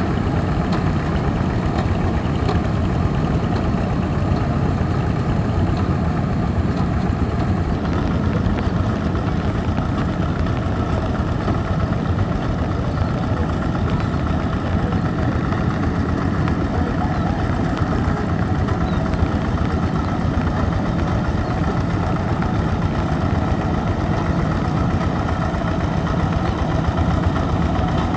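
Quick G1000 two-wheel hand tractor's single-cylinder Yanmar diesel engine running steadily as the tractor works through a muddy, waterlogged rice field.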